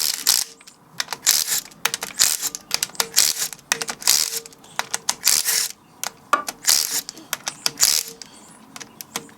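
Impact wrench hammering in about eight short bursts, one bolt after another, breaking loose the 14 mm bolts that hold the center differential carrier in a Toyota 80 series transfer case.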